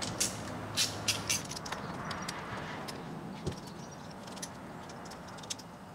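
Light metallic clicks and taps of bolts and the cover being handled while the three 8 mm bolts of a two-stroke dirt bike's upper power valve cover are undone, with a single dull knock about three and a half seconds in.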